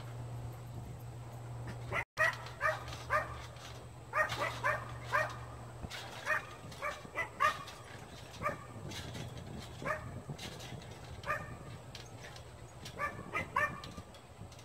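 A dog barking in quick runs of short, high yips, several a second, starting about two seconds in and repeating through the rest.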